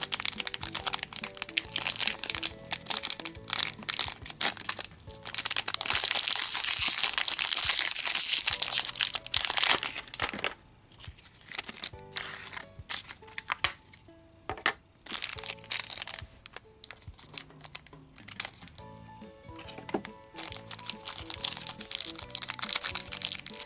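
Grossery Gang blind-pack wrapper being torn open and crinkled by hand: paper and foil-like packaging crackling, loudest for several seconds in the first half and again near the end. Soft background music plays underneath.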